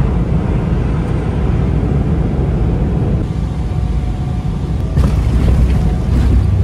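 Loud, steady low rumble in the cabin of a Boeing 777-300ER landing. It grows louder about five seconds in, with a faint thud as the wheels meet the runway.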